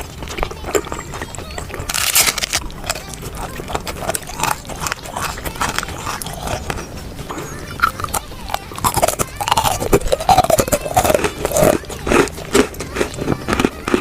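Close-up eating sounds: a crunchy bite about two seconds in, then wet chewing, lip smacks and mouth clicks, busier in the second half.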